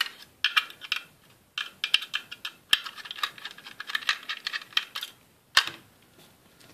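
Small screwdriver turning out the screws of a laptop hard drive's metal caddy: quick runs of light metallic clicks and ticks, with one sharper click about five and a half seconds in.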